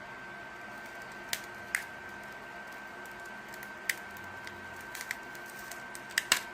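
Scattered small sharp clicks and taps of tools and fingers working at a phone's parts while prying apart a piece held by an adhesive pad, with a quick double click near the end, over a faint steady high hum.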